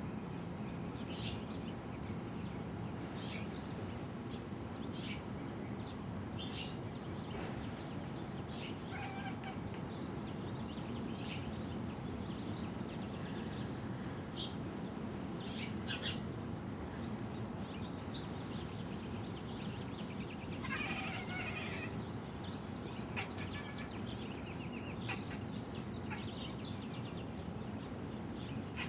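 Domestic cat chirping and chattering at birds: short, high chirps scattered throughout, with a longer, louder call about two-thirds of the way through, over a steady low background hum.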